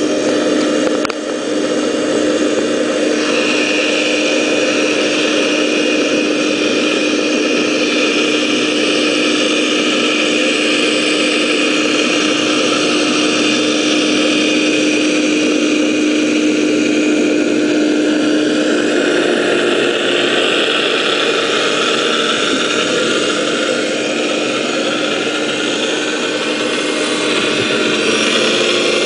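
Vortex TORNADO 4-inch dredge running steadily, heard through the water: a constant engine-and-pump hum with a steady tone, over a rushing noise of water being drawn through the suction hose.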